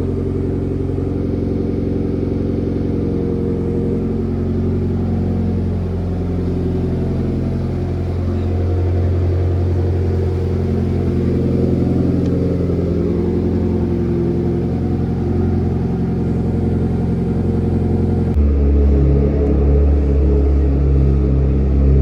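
Mitsubishi Lancer Evolution X's turbocharged 2.0-litre four-cylinder, fitted with a 57 mm big turbo and not yet tuned, running steadily with slight changes in pitch. About 18 seconds in the sound switches abruptly to a deeper, heavier engine note.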